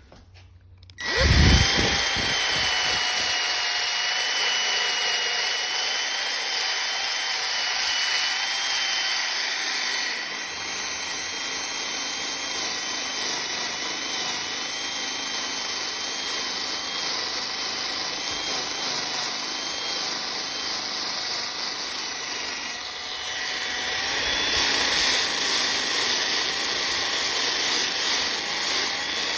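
Electric power tool switched on about a second in and running steadily with a motor whine, dropping a little in level partway through and louder again near the end.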